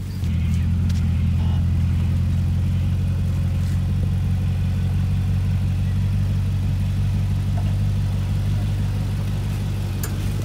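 Nissan Y62 Patrol's 5.6-litre petrol V8 running at steady raised revs, stepping up in level just after the start and holding there.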